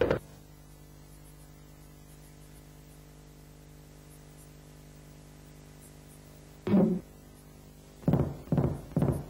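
A steady low hum, broken by short thuds: one at the very start, one about seven seconds in, then three quick knocks about half a second apart near the end.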